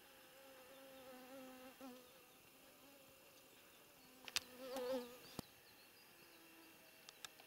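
A flying insect buzzing close to the microphone, a low hum that wavers in pitch, passing twice: about half a second to two seconds in, and again around four to five seconds in. Several sharp clicks sound during the second pass and near the end.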